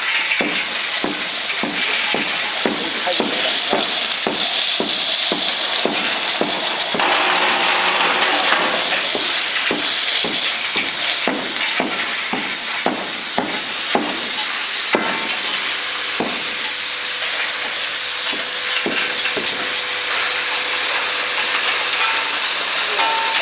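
Bottle feeder machine running with a hopper load of plastic bottles: a dense, continuous rattle and hiss of bottles tumbling against each other and the stainless-steel hopper, with regular knocks at a steady beat. About two-thirds of the way through the knocks thin out and a steady machine hum comes in.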